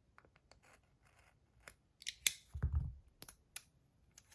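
Scissors snipping at packaging: a few short, sharp snips with light scratching and handling noise, and one soft low thump partway through.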